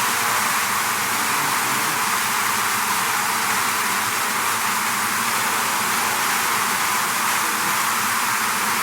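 Bee swarm buzzing: a dense, steady, hiss-like hum of many wingbeats with no change in level.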